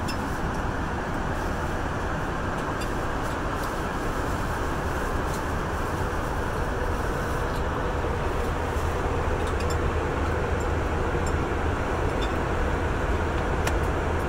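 Steady cabin noise of an airliner in flight, the even drone of the jet engines and rushing air, with a few faint clicks.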